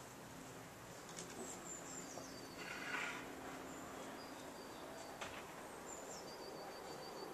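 Faint outdoor ambience with small birds singing: thin, high whistled notes that step down in pitch, repeated several times, with a short burst of noise about three seconds in.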